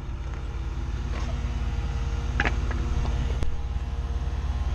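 Forklift engine running steadily, with a fast, even low throb and a few light knocks over it.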